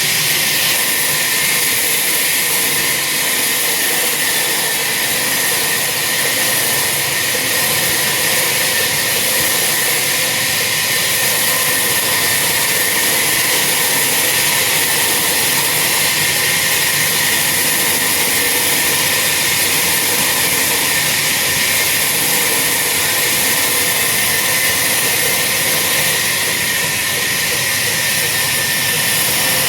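Chainsaw running steadily at high speed, a loud even hiss-like whine with no breaks, as it cuts through a large tree trunk.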